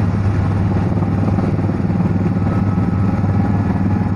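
Helicopter engine and rotor running: a loud, steady drone with a fast, even beat.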